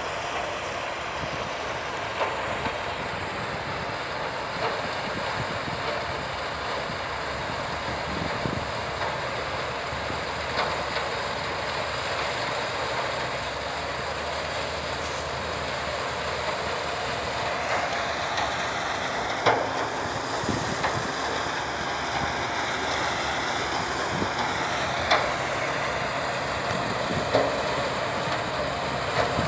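A sugarcane harvester and the tractor beside it running steadily: a continuous machine din with a few sharp knocks, and a faint whine that wavers in pitch through the second half.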